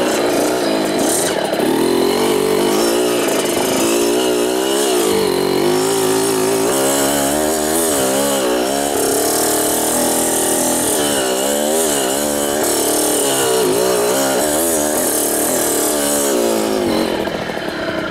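Two-stroke dirt bike engine being ridden, its note rising and falling again and again as the throttle is opened and closed. It drops back near the end.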